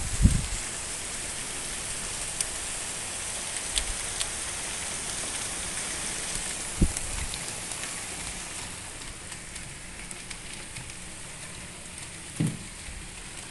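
Heavy summer rain pouring down, a steady hiss with many small drop ticks, easing a little in the second half. Two dull thumps break through, one about seven seconds in and one near the end.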